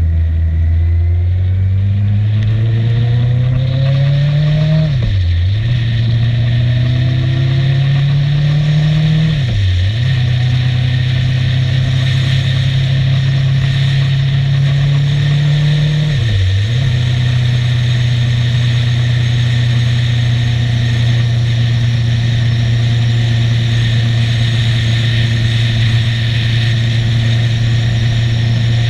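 Motorcycle engine pulling away and accelerating, its note climbing and dropping briefly at three upshifts, then holding steady at cruising speed. Wind rush grows as the speed builds.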